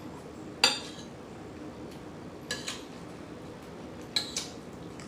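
An eating utensil clinking against a dinner plate: five short ringing clinks, one about half a second in, then two quick pairs.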